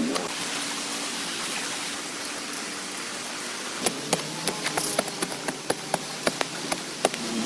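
Steady rain falling. Irregular sharp taps or knocks start about halfway through, roughly four a second.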